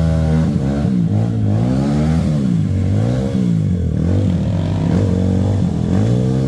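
Yamaha WR155 dirt bike's single-cylinder engine revving up and down over and over, about once a second, as the throttle is opened and closed on the trail.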